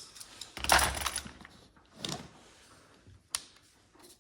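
Hand tools being rummaged through and taken out of a tool bag: a loud burst of rustling and clattering just under a second in, a smaller one about two seconds in, and a single sharp click a little after three seconds.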